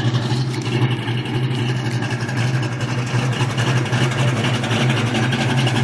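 Fox-body Ford Mustang's engine idling steadily through its exhaust, with no revving.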